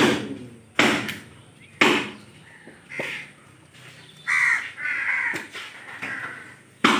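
Sharp chops of a butcher's knife through beef onto a wooden board, several in the first three seconds and another near the end. A crow caws a few times in between.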